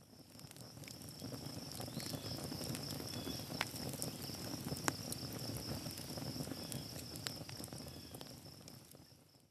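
Insects trilling steadily in a high, even band, with a few sharp clicks scattered through; the sound fades in and fades out again.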